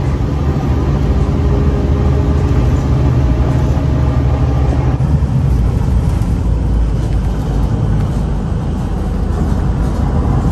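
City bus driving at road speed, heard from a seat inside the passenger cabin: a steady low engine drone mixed with tyre and road noise.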